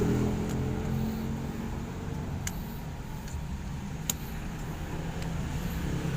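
A low steady engine-like rumble, with a few faint light clicks.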